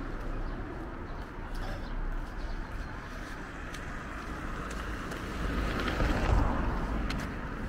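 Street noise with road traffic, a vehicle passing and swelling loudest about six seconds in.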